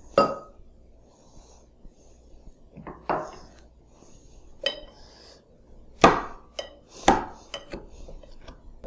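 A muddler pounding a pineapple chunk in the bottom of a stainless steel cocktail shaker: irregular knocks, a handful of loud ones about a second apart and quicker, lighter ones near the end.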